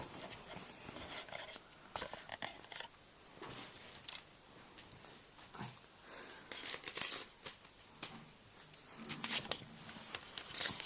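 Handling noise: scattered light clicks, taps and rustles of things being picked up and moved about, with a cluster of sharper clicks near the end.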